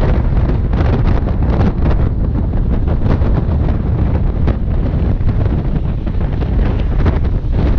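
Strong wind buffeting the microphone in a loud, irregular low rumble, with surf washing over the rocks beneath it.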